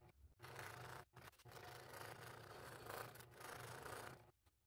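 Scroll saw running, its fine blade cutting slowly through acrylic mirror. It is heard as a faint low motor hum with a light rasping of the blade, dropping out briefly a few times.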